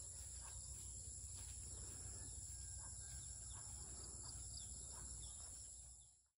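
Faint outdoor ambience: a steady high drone of insects such as crickets, with scattered short bird chirps over a low rumble. It fades out near the end.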